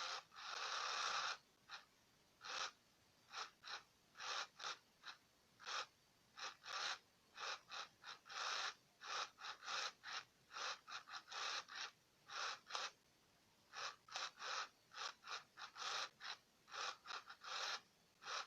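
A 1999 Furby Baby's internal motor and gearbox whirring in many short stop-start runs. There is a run of about a second at first, then dozens of quick bursts with pauses between, and no voice at all: the Furby's motor works but its speaker is mute.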